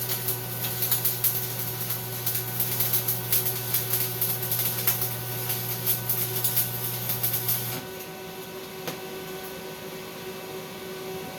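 Stick-welding arc on a 1/8-inch 6013 rod at 90 amps, crackling and sizzling with a steady low hum under it. The arc breaks off about eight seconds in, leaving only a fainter hum.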